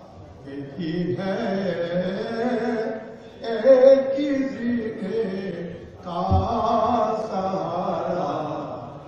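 Voices chanting a devotional religious chant in three long sung phrases, with short breaths between them. One low thump about six seconds in.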